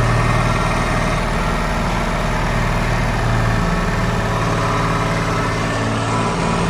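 Tractor engine running steadily at a constant speed, a loud even hum.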